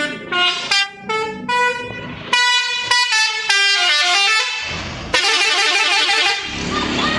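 Telolet bus horn, a set of musical air horns, playing a tune of short stepped notes that rise and fall. It then plays longer notes. About five seconds in, it switches to a rapid warble that lasts just over a second.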